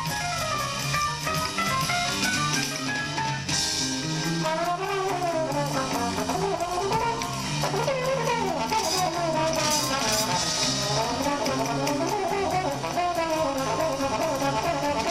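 Jazz music with trumpet and trombone lines over a drum kit.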